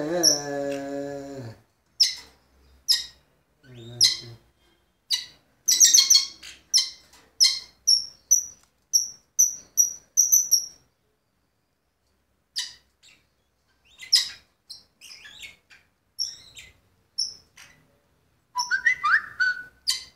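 Budgerigars chirping: short, sharp, high chirps, with a quick run of evenly spaced chirps about two a second in the middle and a few lower sliding calls near the end. A low humming tone sounds for the first second and a half.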